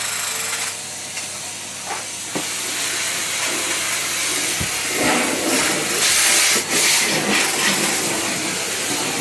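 Henry canister vacuum cleaner running: a steady suction hiss over a low motor hum, growing louder for a couple of seconds past the middle.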